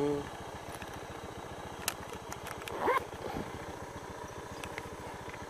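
Small engine idling steadily with a fast, even low pulse, and a short falling squeak about three seconds in.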